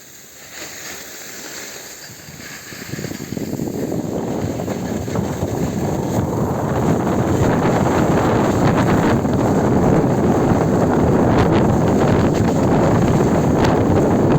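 Wind buffeting the microphone: a rushing noise that grows louder over the first several seconds, then holds steady.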